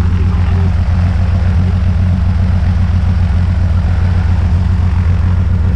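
Piston engine and propeller of a single-engine Cessna Skylane idling on the ground: a loud, steady low drone.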